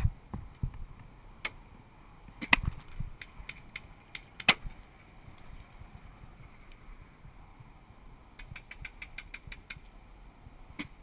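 Paintball markers firing: a few single shots spaced over the first seconds, then a quick string of about eight shots near the end.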